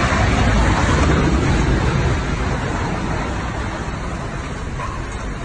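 Floodwater rushing: a steady, noisy wash with a heavy low rumble that eases slightly over the last few seconds, then cuts off abruptly.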